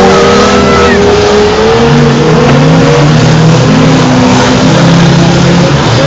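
Several banger racing cars' engines running hard and revving together, loud and dense, their pitches rising and falling as the cars accelerate round the muddy track.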